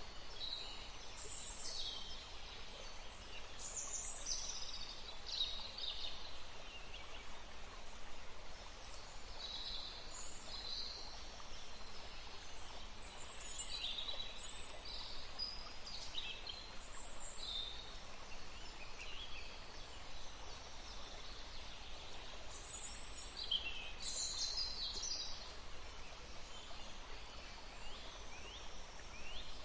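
Songbirds chirping and trilling in scattered bursts over a faint, steady rush of flowing water.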